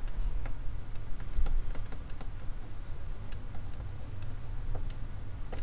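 Scattered, irregular clicks of a computer mouse and keyboard during photo editing, over a steady low hum.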